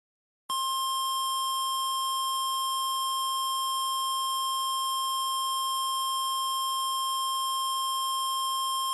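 Emergency alert alarm tone: one steady, unbroken electronic tone that starts about half a second in and holds at an even level.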